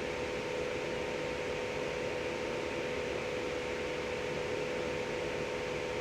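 Steady hiss with a constant hum, like a fan or other running machinery, unchanging throughout.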